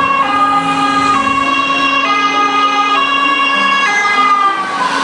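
Ambulance's two-tone siren, alternating between a high and a low pitch about once a second.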